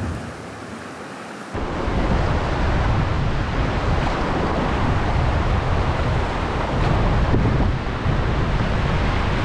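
Steady rush of whitewater rapids with wind buffeting the microphone, coming in suddenly about a second and a half in after a quieter stretch.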